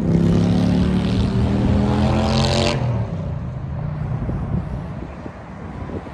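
A car drives past close by, its engine note easing slightly lower as it goes, for about the first three seconds; after that, quieter steady street traffic.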